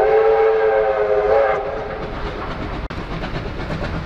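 Whistle of the Victorian Railways R class steam locomotive R761 sounding a long blast that cuts off about a second and a half in, followed by the rumble and clatter of the approaching train.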